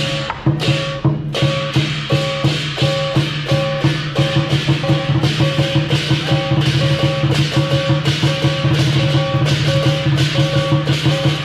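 Chinese lion-dance percussion band of drum, cymbals and gong playing a steady, fast beat, about four strokes a second, with the gong and cymbals ringing on between strokes.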